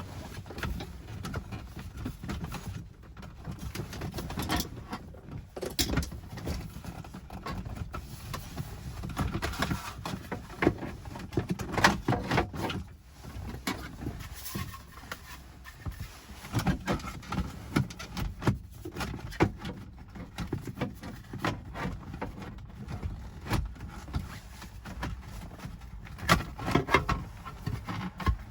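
Irregular clicks, knocks and rubbing of plastic dash trim as the radio side rails are worked into place around a car stereo.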